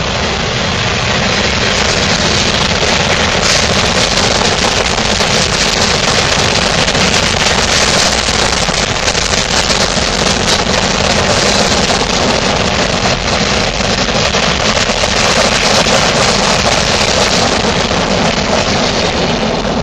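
Freight cars of a mixed freight train rolling past close by: a loud, steady rumble with a constant fine clatter and rattle of steel wheels on the rails.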